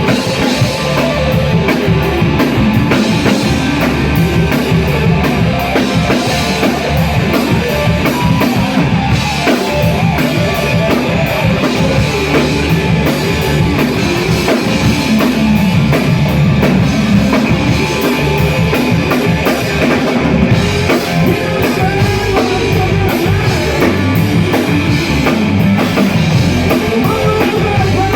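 Live rock band playing loud, with a drum kit and electric guitar, steady throughout.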